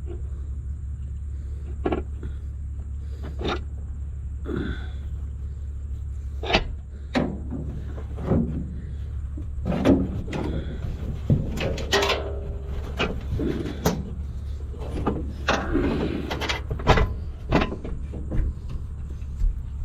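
Irregular clicks, knocks and light rattles of hands and tools working on the combine's wiring and fittings, over a steady low hum.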